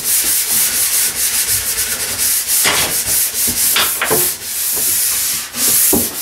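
Nylon brush scrubbed quickly back and forth along a waxed ski base, a rhythmic bristle hiss in rapid, even strokes with a few sharper knocks. This is the final polishing pass that buffs the base to a shine after scraping and brushing.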